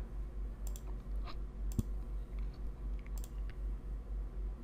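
A few computer mouse clicks, some in quick pairs, over a faint steady low hum.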